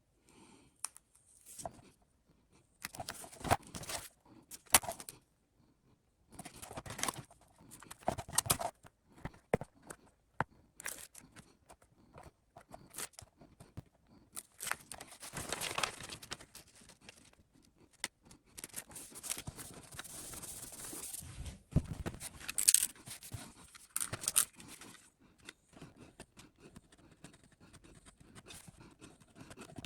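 Irregular scraping, rustling and tearing noises of hand work on a fly rod's rear grip, with a couple of longer stretches of steady scraping midway.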